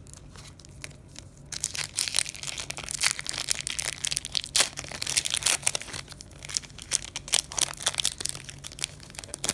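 Foil booster-pack wrapper crinkling in the hands and being torn open: dense crackling that starts about a second and a half in and goes on throughout.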